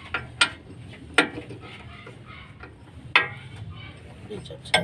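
Hand tools clinking and knocking against metal parts, about five sharp strikes at irregular intervals. The loudest come a little after one second and about three seconds in.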